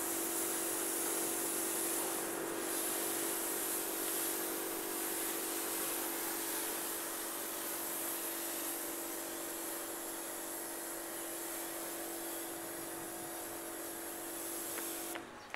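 Self-service car wash machine spraying through its hand lance: a steady hiss of spray over a steady hum from the machine, which cut off together suddenly near the end.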